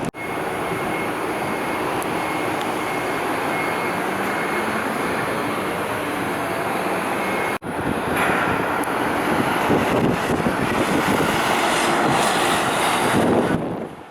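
Strong wind blowing across the microphone over a steady background of vehicle noise. The sound breaks off sharply for an instant about halfway through, and the second stretch is louder and gustier.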